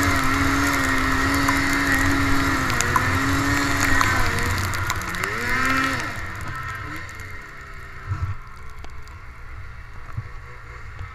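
Snowmobile engine running at steady revs under throttle, then revving up and down about halfway through before the throttle comes off and it drops to a much quieter low idle as the sled slows.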